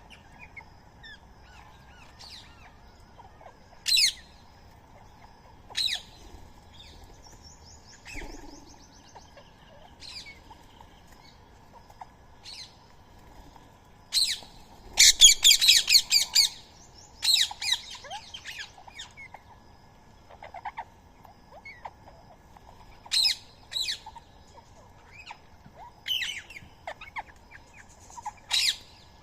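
Birds calling: short, sharp squawks and chirps every few seconds, with a loud burst of rapid chatter about halfway through.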